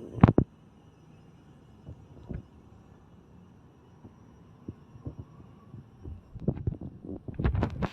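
Irregular sharp knocks and clunks of hard objects being handled. A loud double knock comes right at the start, a few scattered taps follow, and a busy run of knocks fills the last two seconds.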